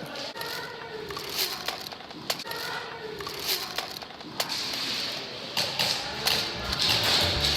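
Scattered single sharp cracks of airsoft guns firing, roughly a second apart, with faint voices in the distance.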